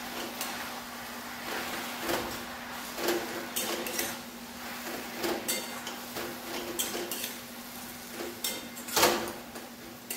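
Metal spatula stirring and scraping jute greens around a metal wok, with irregular scrapes and clinks and one louder clank about nine seconds in, over a steady low hum.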